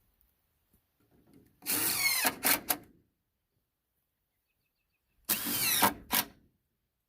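A power drill run twice, each run about a second long with its pitch sliding as it works, then a short extra pulse, as when driving screws.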